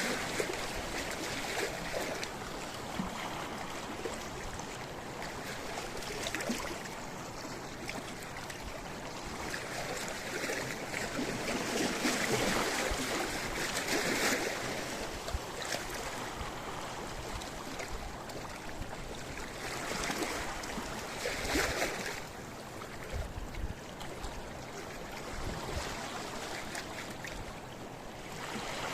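Sea waves washing in on a rocky beach: a steady rush of surf that swells and falls back, with the biggest surges about halfway through and again about two-thirds in.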